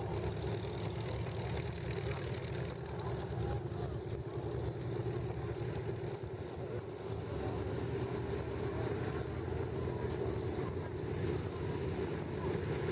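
Douglas A-26 Invader's twin Pratt & Whitney R-2800 radial engines running steadily at low power.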